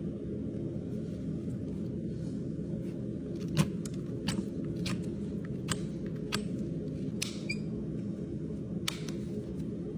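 Farrier's hoof nippers cutting the horse's hoof wall: a run of sharp snaps, roughly one every second, over a steady low hum.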